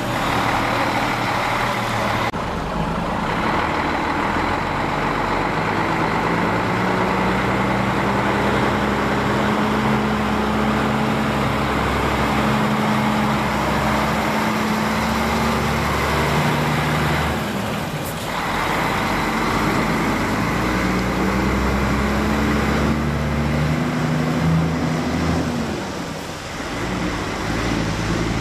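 Diesel engines of loaded semi-trucks pulling slowly away, the engine note rising as they accelerate. The sound breaks off and changes abruptly a few times.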